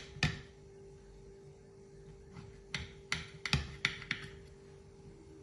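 Table knife cutting through a grape-topped pancake and clicking against the ceramic plate: one click at the start, then a quick run of about six sharp clicks a few seconds in.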